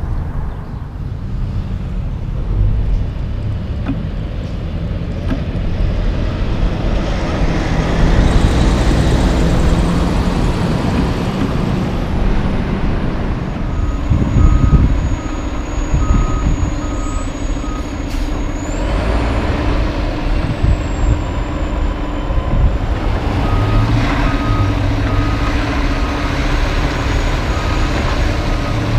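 Heavy diesel concrete mixer trucks running, with a low steady rumble. Partway through, a Mack mixer truck's reversing alarm sounds a steady on-off beep in two spells as the truck backs up.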